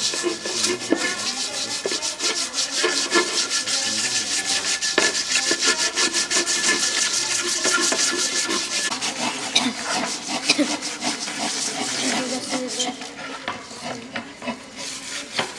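Hand-smoothing of small fretwork wooden cut-out figures, an abrasive rubbed over the wood in quick, overlapping scratchy strokes from several pieces at once. The rubbing grows quieter near the end.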